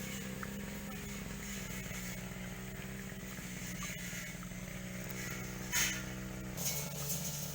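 A motor runs steadily with an even drone; its pitch shifts about a second before the end. A brief sharp scrape or splash-like noise comes just before that.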